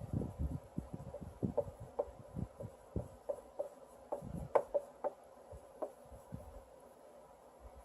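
Hands working small metal parts and tools on a vape RDA (rebuildable dripping atomizer) during a coil rebuild: irregular light clicks and taps, some with a short metallic ring, over soft bumps and rubbing.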